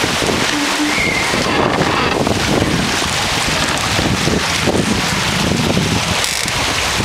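Wind buffeting the microphone over the steady rush of water past a catamaran's hull under way.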